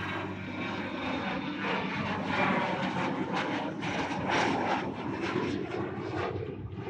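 Airplane passing overhead: a rushing aircraft engine noise that swells toward the middle and eases off near the end.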